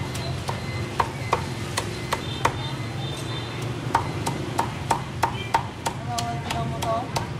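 Cleaver chopping roast pork on a chopping board: sharp knocks at an uneven pace of about two to three a second, with faint voices and a low steady hum behind them.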